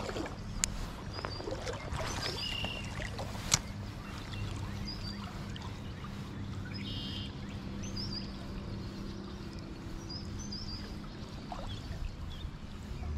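Stream water running steadily under a low hum, with small birds chirping now and then. Two sharp clicks come in the first few seconds.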